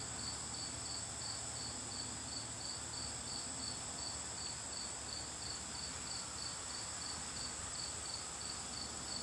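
Crickets chirping steadily: a high chirp repeated evenly, two or three times a second, over a higher continuous insect trill.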